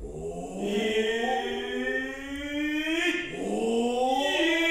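A man's voice in long, drawn-out stylized Noh kyogen declamation: two sustained phrases, each sliding slowly upward in pitch, with a brief break about three seconds in.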